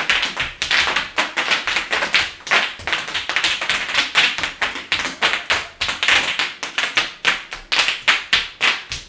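Bubble wrap popping under bare feet as two people stomp across it, a rapid, irregular string of sharp pops several a second.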